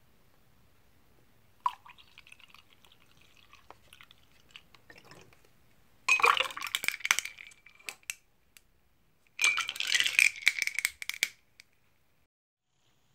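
A sharp click, then faint rustling, then two loud bursts of small hard pieces rattling and clinking inside a container that rings, the second burst about three seconds after the first.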